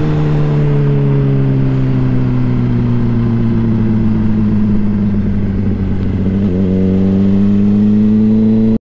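Honda CBR600RR sportbike's inline-four engine running under way. The engine note sinks slowly for about six seconds, changes briefly, then climbs gently before cutting off abruptly just before the end.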